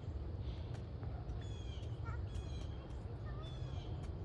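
Birds calling: short calls repeated about once a second, with a few smaller chirps between, over a steady low rumble.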